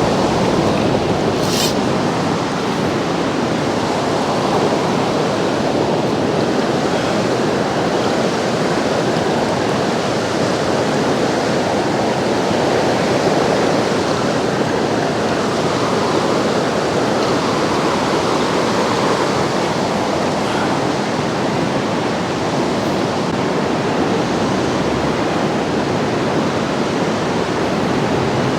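High-water mountain river rushing in a steady, dense roar of water, with one brief click about a second and a half in.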